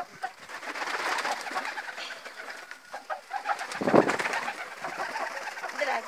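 Domestic pigeons cooing, with a louder burst of noise about four seconds in.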